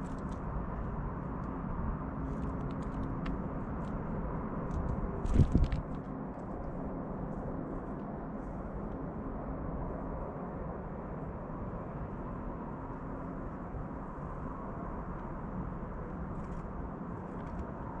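Steady low outdoor background rumble and hiss, with a few faint clicks and one brief, louder thump a little over five seconds in.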